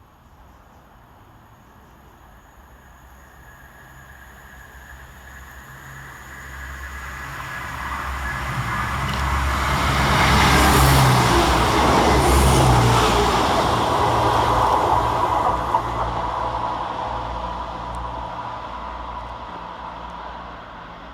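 Diesel train passing through the station: its engine and wheel noise build up over about ten seconds, peak, and then fade away as it goes on.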